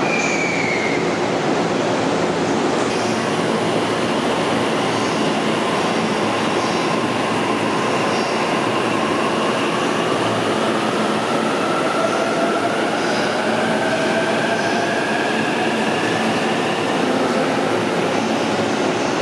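JR Tokaido Line electric commuter train pulling out of the platform, its running noise carrying faint whining tones that slowly rise in pitch as it gathers speed.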